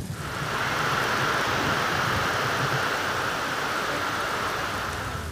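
Steady rushing noise of water, an even hiss without any pitch.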